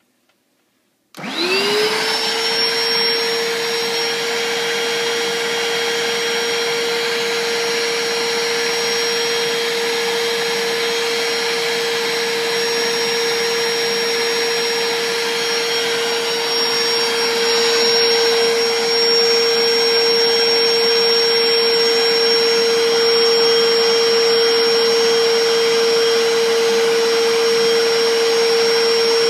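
Bissell SpotBot Pet portable spot cleaner switching on about a second in: its motor spins up with a rising whine, then runs steadily, a high whine over a rush of suction as it works a cleaning cycle on the carpet. It grows a little louder about two-thirds of the way through.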